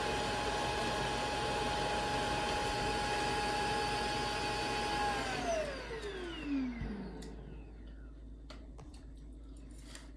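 Shark self-emptying dock's suction motor running with a steady whine as it empties the robot vacuum's dustbin, then shutting off and spinning down in a falling whine about five seconds in, followed by a few faint clicks.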